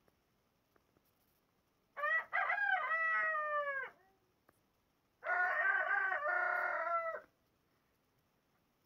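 Two rooster crows, each a cock-a-doodle-doo about two seconds long, the first about two seconds in and ending in a falling pitch, the second about five seconds in.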